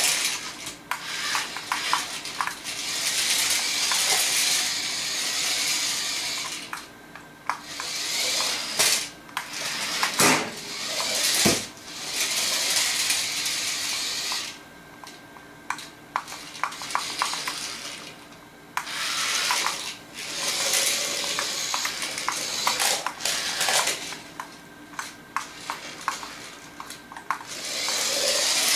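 Battery-powered toy RC mini truck driving on a laminate wood floor: its small electric motor and plastic gears whir in spells of a few seconds, stopping and starting, with clattering clicks and rattles in between as it reverses, spins and its wheels slip.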